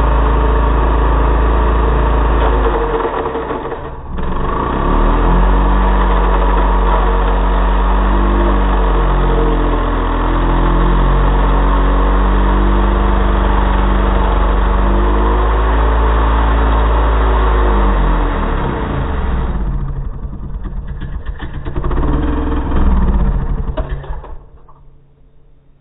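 Timberpro two-stroke chainsaw running hard with its chain cutting into a motorcycle helmet, its pitch wavering under the load. The throttle drops off briefly about four seconds in, then comes back. Near the end the revs fall off, rise once more, and the engine cuts out.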